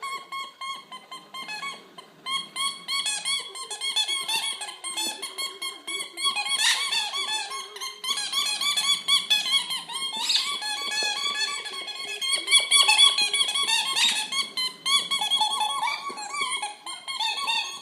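A dog chewing a latex squeaky Easter-egg toy, making it squeak over and over in quick, high-pitched squeals.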